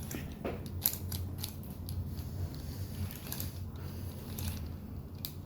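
Plastic puzzle cube being twisted and slid by hand: a run of irregular clicks and scrapes as its pieces move.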